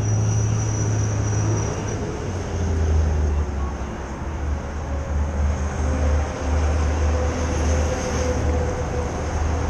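Motorcycle engine idling steadily, a low even hum, with city street traffic passing.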